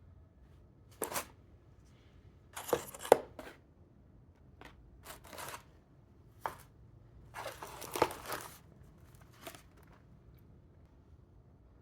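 Intermittent handling noises in a small room: sharp knocks and clacks mixed with short bursts of rustling, spaced a second or two apart, the loudest knock about three seconds in.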